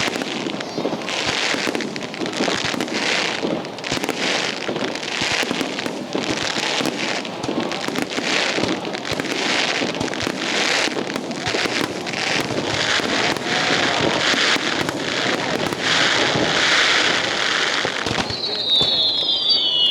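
Fireworks display: a rapid, dense barrage of bursting shells, with continuous bangs and crackling. Near the end come two whistles that fall in pitch.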